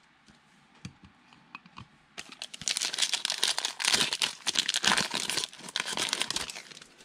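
A trading-card pack wrapper being torn open and crinkled by hand, a dense crackling that starts about two seconds in and lasts about four and a half seconds, after a few faint clicks.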